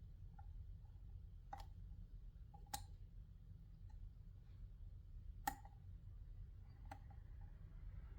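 Faint ticking and clicking of a disc detainer pick turning the discs inside a Kryptonite disc detainer lock as each disc is felt for its gate, with four sharper clicks spread through.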